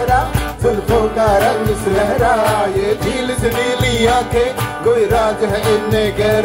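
A Hindi film song being sung: a wavering, drawn-out melody over musical accompaniment.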